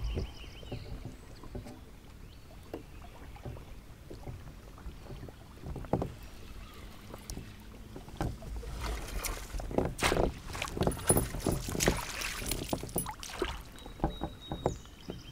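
A fishing reel is being wound in and water splashes as a hooked smallmouth bass is played up to a kayak, with wind rumbling on the microphone. A busier stretch of splashing and clatter comes about nine to thirteen seconds in, as the fish nears the boat.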